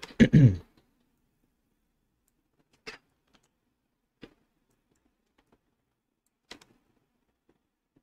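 Three separate short clicks from a computer keyboard and mouse, a second or more apart, with quiet between them.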